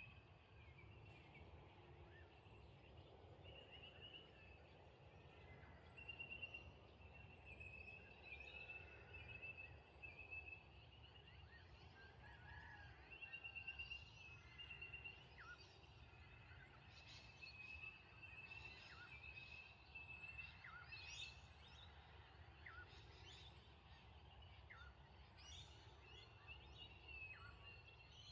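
Faint outdoor evening ambience: a high trill at one steady pitch, repeating in bursts of about a second, with short chirps scattered through the second half, over a low rumble.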